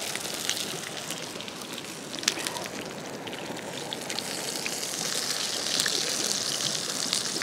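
Wood cooking fire crackling and popping, with one louder pop about two seconds in, over a steady rush of flowing creek water.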